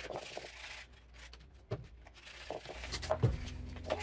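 A primed 3D-printed armor piece being handled and sanded by hand: a short burst of rubbing near the start, then scattered light knocks and scrapes.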